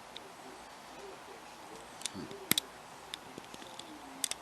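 Small sharp clicks and taps of a lock pick and tension wrench working the pins of a hand-held challenge lock while it sits in a deep false set, irregularly spaced, the loudest one about halfway through and a quick pair near the end.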